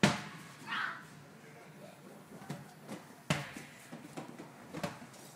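A sharp knock at the start, then a few fainter clicks and bumps, over faint distant voices.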